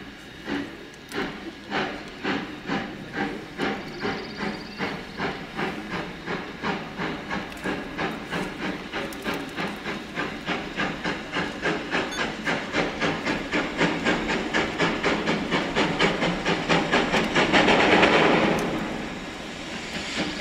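Steam locomotive working hard as it approaches, its exhaust chuffing in an even rhythm of about three to four beats a second and growing steadily louder. A louder hiss of steam swells up and fades near the end.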